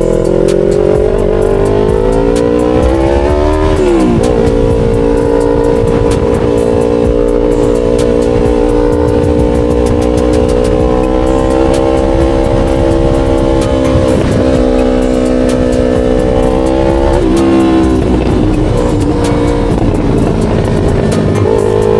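Yamaha R3 parallel-twin engine under way, its pitch rising and then dropping sharply at a gear change about four seconds in. It then holds a steady pitch while cruising, dips again at another shift later on, and climbs once more near the end.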